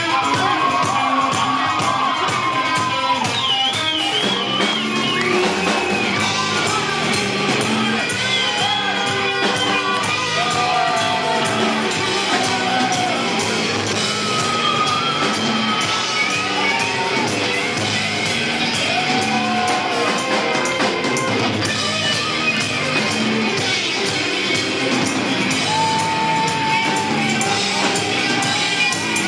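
Rock band playing: electric guitar and drums in a steady beat, with bending melody lines and sung or shouted vocals over it.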